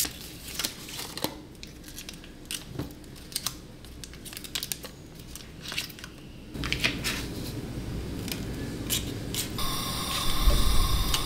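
Foil butter wrapper being cut open with a knife and peeled back: scattered light clicks and crinkling of the foil, busier in the second half.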